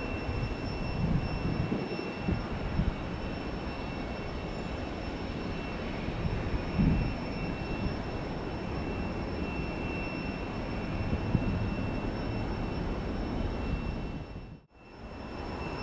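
Steady distant jet airliner engine noise, with low gusts of wind on the microphone in the first few seconds. It drops out briefly near the end.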